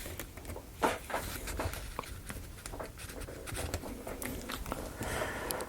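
Light clicks and rustles of plywood model-kit pieces being handled and pushed into place, with a sharper click about a second in.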